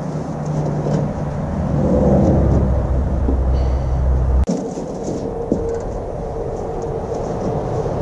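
Motor-driven lift running under a load it is rated too light for: the furnace is thought to weigh over the lift's 500-pound rating. Its low hum builds in level and cuts off suddenly about four and a half seconds in, after which a quieter, steady, higher hum carries on.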